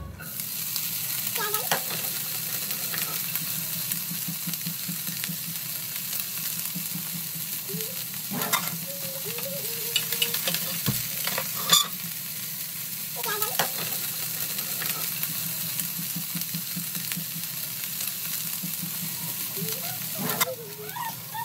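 Chopped onion and mixed vegetables sizzling in oil in a nonstick frying pan, stirred with a spatula that scrapes and knocks against the pan now and then.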